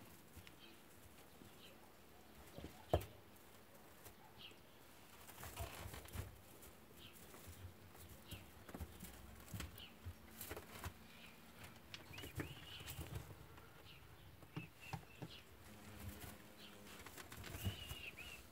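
Rabbits shuffling and rustling about in dry straw in a wooden hutch, with scattered soft knocks and one sharp knock about three seconds in. Faint short high chirps come and go.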